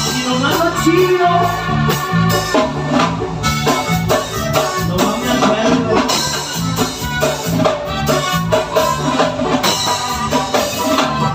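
Live tropical band playing an instrumental passage of a corrido between sung verses: a keyboard melody over a steady, bouncing bass line and drums.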